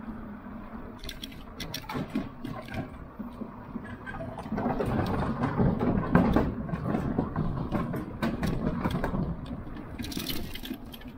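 Electric bike's tyres rolling over a footbridge's plank deck. About four seconds in, the sound grows into a louder, rattling run over the boards that lasts about four seconds, with a short hiss near the end.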